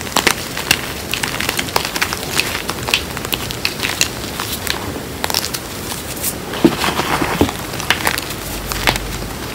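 Hands crushing and crumbling chunks of reformed gym chalk, calcium and magnesium chalk mixed with cornstarch, in a bowl of chalk powder. It makes a continuous, irregular crunching and crackling, with many sharp snaps as pieces break apart.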